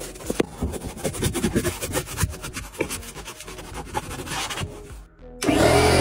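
A stiff brush scrubbing a car's carpet and plastic trim, an uneven rubbing with many small clicks. Near the end a loud, steady electric hum cuts in suddenly: a pancake air compressor's motor starting.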